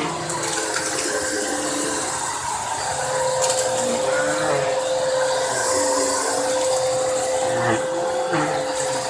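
Vacuum cleaner running over a doormat rug: a steady motor whine with airflow hiss, the whine growing stronger a few seconds in, and a few brief knocks as the nozzle moves.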